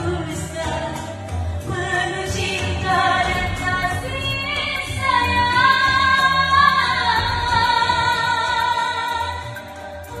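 A woman singing a dangdut song into a karaoke microphone over the backing track, holding a long note in the middle.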